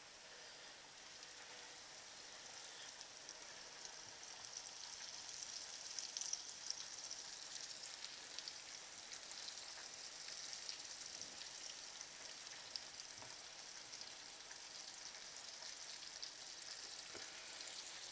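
Flour-and-egg-coated cod chunks sizzling in a frying pan, a steady hiss with scattered little crackles that grows somewhat louder after the first few seconds.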